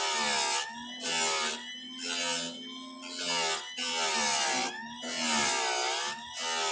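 A chainsaw chain's cutter tooth being sharpened: repeated rasping strokes, about one a second, each lasting around half a second with short quieter gaps between.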